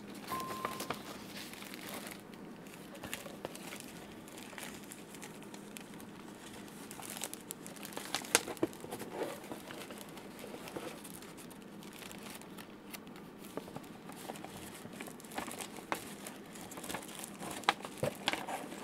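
Plastic protective sleeve and paper sheets crinkling and rustling as they are handled, with scattered small crackles.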